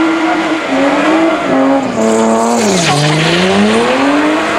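BMW E30 doing donuts, its engine revving hard as the rear tyres spin and squeal. The revs are held high, fall in steps to a low dip about three seconds in, then climb steadily back up.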